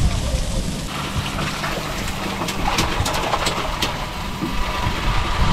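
Wind rumbling on the microphone aboard an open fishing boat, with a steady hum coming in about a second in and a few sharp clicks in the middle.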